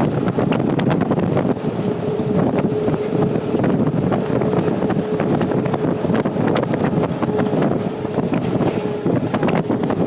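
Vehicle travelling along a highway: wind buffeting the microphone over engine and road noise, with frequent small rattles and a steady hum underneath.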